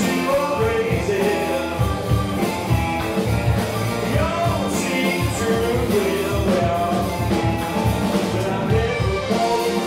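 A live rock band playing through a PA: electric guitar, electric bass, drum kit and keyboards, with a steady drum beat.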